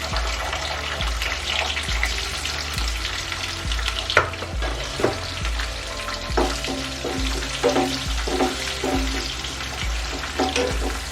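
Sliced onions and green chillies frying in oil and ghee in a kadai, sizzling steadily, with a spatula stirring and scraping against the pan now and then.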